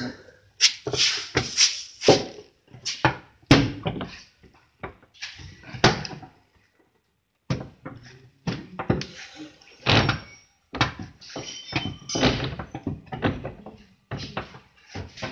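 Car fender being knocked and pushed out from behind through the wheel arch to remove a dent: a run of irregular sharp knocks, one or two a second, some ringing briefly, with a short pause about seven seconds in.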